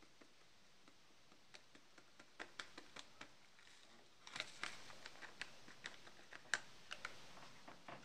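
Cabbage frying in a pan: hot oil under it crackles in scattered sharp pops that grow more frequent, with a brief spell of denser sizzling about four seconds in.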